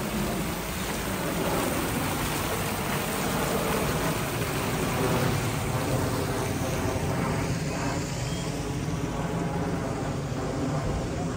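Fountain jet splashing into its pool: a steady rush of falling water over a low hum. The high splash fades near the end.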